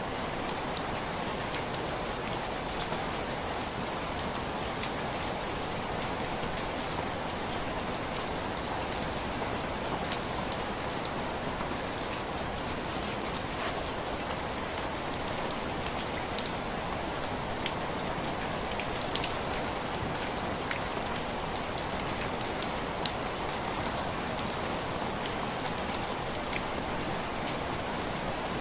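Steady rain on window glass: an even hiss of rainfall with scattered individual drops tapping sharply against the pane.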